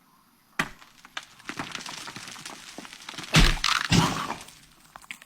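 A sudden clatter of cracks and crashing thuds starting about half a second in. The two loudest heavy hits come about three and a half and four seconds in, then it dies away.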